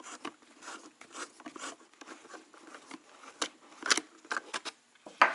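A screwdriver turning the screws out of a snowmobile helmet's chin piece: a run of small clicks and scratchy creaks, with sharper clicks about four seconds in and near the end.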